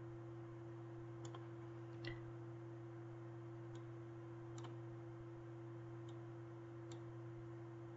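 Faint computer mouse clicks, about six scattered over the stretch, over a steady low hum.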